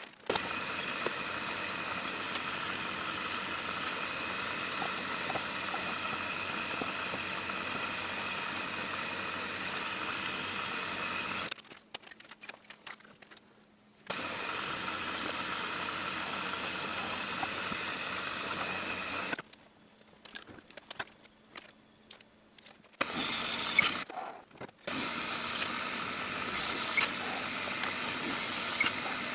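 Milling machine running with a steady motor whine, stopping about 11 seconds in, running again from about 14 seconds and stopping near 19 seconds. Clicks and handling knocks follow, then from about 23 seconds a louder, uneven machining noise with short breaks.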